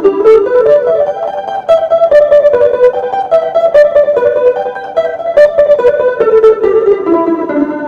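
Electric guitar, a Stratocaster-style solid body played through a pedalboard, picking a single-note melody line. The quick plucked notes run up and then step back down in pitch.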